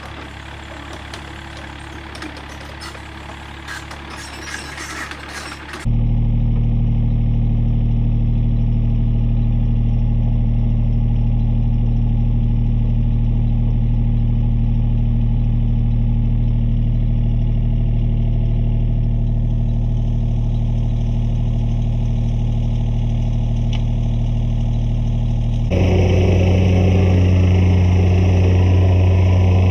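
Mini excavator engine running steadily, with metallic clatter over the first few seconds. It changes abruptly about six seconds in to a steady, even hum, which grows louder near the end.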